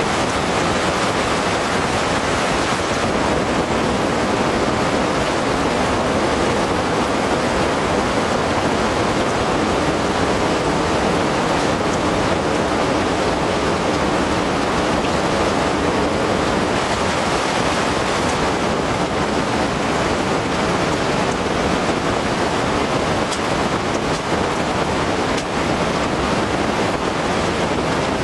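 Heavy rain pouring in a steady, even downpour.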